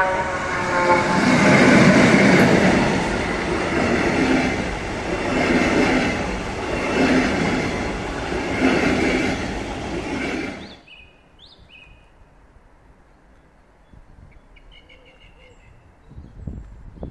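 Electric locomotive and double-deck coaches passing close by at speed: the locomotive's tone falls in pitch as it goes past, then the wheels run over the rails with a beat about every second and a half as the coaches go by. The sound cuts off suddenly about eleven seconds in.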